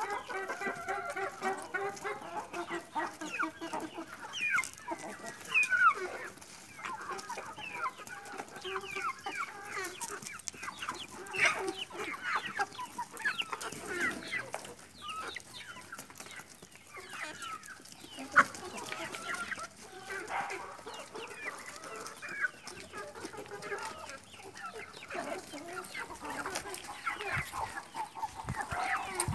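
A flock of chickens clucking and calling while they feed, with many short calls throughout and a longer held call in the first few seconds.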